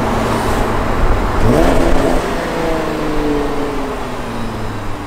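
Modified Nissan GT-R R35's twin-turbo V6 running through an aftermarket titanium exhaust, with a quick rev blip about a second and a half in, then the revs falling away slowly.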